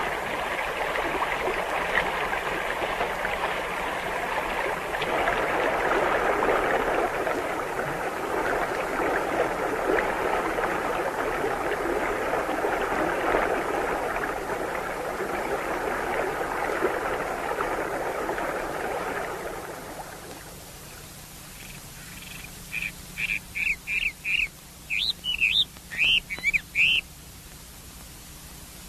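Mountain stream water rushing steadily over rocks for about twenty seconds, then fading out. A bird follows with a quick run of short, high chirps.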